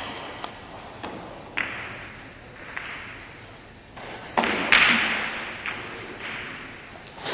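Billiard balls clacking: scattered sharp clicks of ball striking ball. The loudest come in a quick cluster a bit past halfway, as the cue strikes the ball and it hits the others, each click ringing briefly in the hall.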